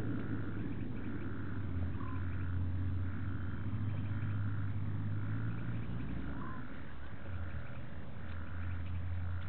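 Frogs calling at a waterhole at night: a regular pulsing call repeats about once a second, with an occasional short falling chirp. A steady low hum runs underneath.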